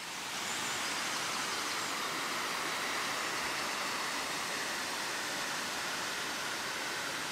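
Steady rushing of water over a small stepped waterfall and shallow rocky stream, fading in over the first second.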